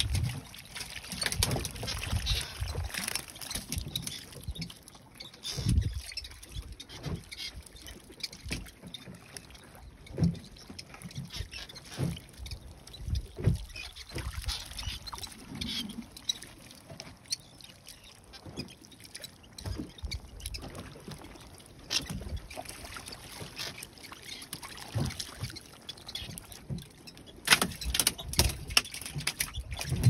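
A net full of small fish being handled aboard a small wooden boat: irregular rustling, splashing and scattered knocks against the hull, with no engine running.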